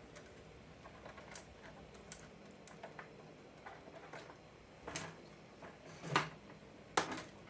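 Small plastic clicks and taps from hands handling wire connectors and housing parts of an old desk telephone, scattered and faint, with three louder clicks in the second half.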